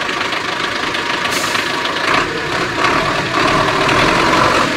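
GAZ-3308 truck engine running steadily at idle, a little louder in the second half.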